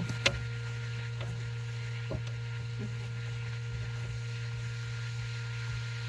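A steady low hum with a few faint taps and clicks, one sharper click right at the start, from hands handling the curtain fittings.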